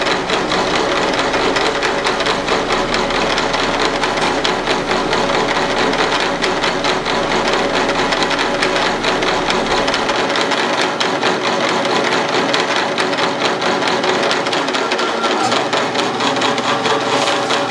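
Milling machine spindle running with a 60-degree included-angle cutter milling a 10-24 thread into a slowly turning 3/16-inch drill rod blank, driven by the CNC 4th axis: a steady, loud mechanical whir. A low hum drops out about ten seconds in, as the cut nears its end and the cutter lifts clear.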